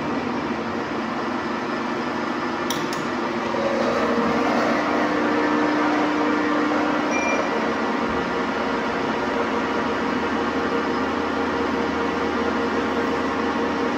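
Metalworking lathe running with a steady mechanical whir and a low steady tone, plus a single brief click about three seconds in.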